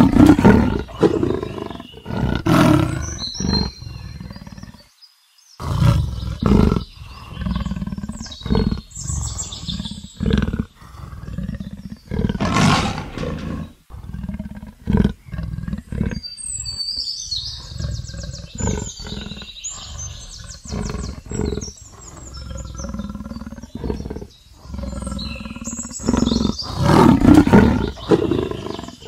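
Leopard roaring and growling in a long series of short, rough calls, with a brief pause about five seconds in. Faint high chirps and trills, like birds, sound behind the calls, most of all in a stretch past the middle.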